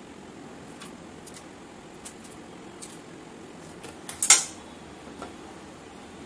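Kitchen items handled on a countertop: a few light clicks and taps, then one sharp clink with a short ring about four seconds in.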